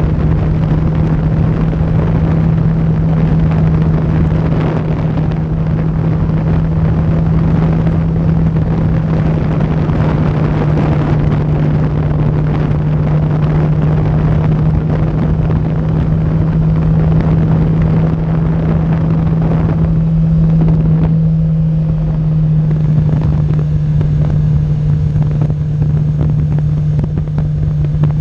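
Sport motorcycle engine running at a steady cruising speed, one constant drone, with wind rushing over the microphone.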